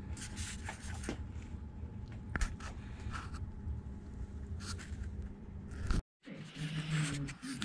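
A low steady hum with scattered light clicks and knocks, as of tooling or the camera being handled. The sound drops out completely for a moment about six seconds in.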